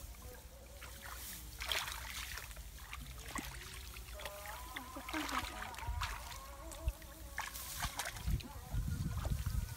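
Hands groping and splashing in shallow muddy paddy water while feeling for fish, with irregular sloshes and splashes. A low rumble builds near the end.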